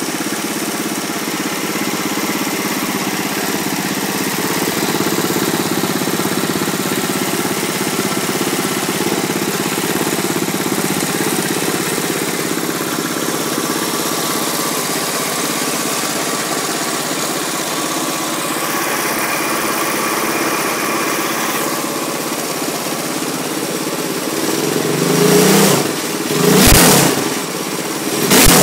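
Honda GX200-clone single-cylinder go-kart engine with an F200 exhaust pipe, running steadily at idle. Near the end it is blipped up to high revs in a few short bursts.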